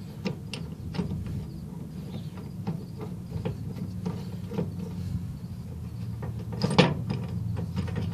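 Light metal clicks and scrapes as a threaded stud is spun by hand onto an SO-239 feed-through adapter in a metal antenna mount bracket, with a louder cluster of clicks near the end. A steady low hum runs underneath.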